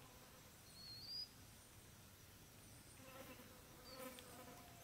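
Near silence with a faint insect buzz, strongest in the last second and a half, and a short high chirp rising in pitch about a second in.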